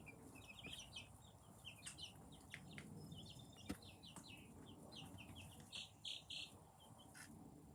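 A brood of two-week-old chicks cheeping in a brooder: many short, high peeps, faint throughout. There is a single sharp click about three and a half seconds in.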